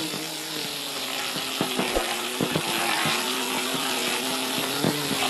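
Small high-speed DC motor buzzing steadily as it spins the propeller of a styrofoam model boat running across the water, over a steady hiss of spray, with a few faint knocks.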